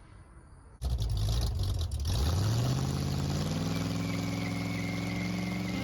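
A motor starts up about a second in: a short rough spell, then its pitch climbs quickly and settles into steady running.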